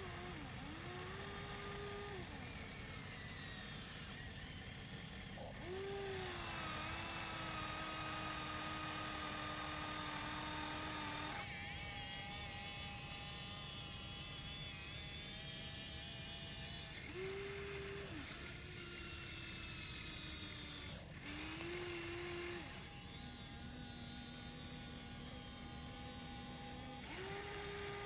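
Electric motors of a Huina alloy RC excavator whining as the boom, arm and bucket move. Each movement is a steady whine that rises in pitch as it starts, holds for a few seconds, then stops or switches to a different pitch as another function takes over.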